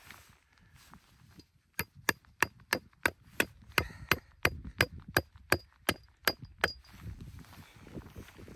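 A tent stake being hammered into frozen ground with the head of an ice axe: about sixteen sharp, ringing strikes, roughly three a second, starting about two seconds in and stopping about seven seconds in.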